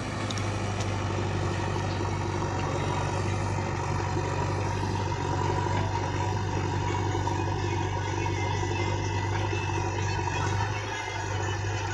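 Heavy diesel engine of earthmoving or farm machinery running steadily, with a strong low hum and a steady higher tone.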